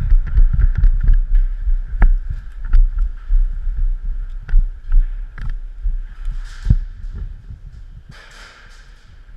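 Irregular low thumps and knocks, with scattered sharp clicks, from a body-worn camera being handled and jostled; they die down over the last few seconds, with two short rustles near the end.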